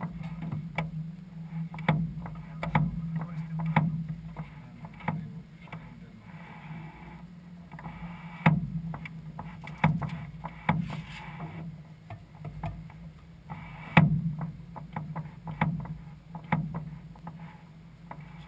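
Groppo Trial ultralight's engine and propeller running with a steady low drone, with irregular knocks and rattles from the airframe every second or so; the sharpest comes about 14 seconds in.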